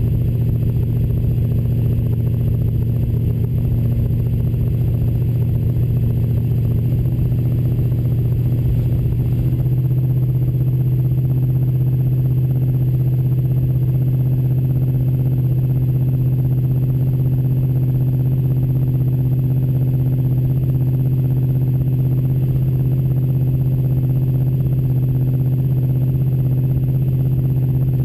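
Small-block Chevy V8 of a 1971 El Camino Super Sport running steadily at an even pitch, which shifts slightly and then holds steadier from about ten seconds in.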